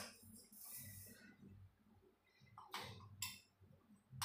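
Near silence: room tone with a faint hiss in the first second and two light clicks about three seconds in, typical of a spoon or utensil touching a dish.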